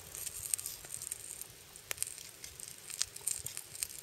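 Wood fire crackling: a soft hiss with scattered sharp, irregular pops.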